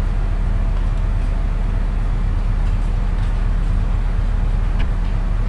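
Steady low hum with hiss, unchanging throughout; no speech.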